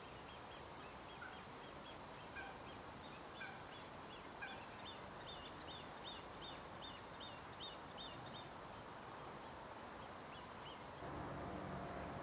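Faint high piping calls from great crested grebe chicks, repeated about twice a second, typical of chicks begging for food, with a lower call about once a second early on. About a second before the end the sound changes to a steady low hum.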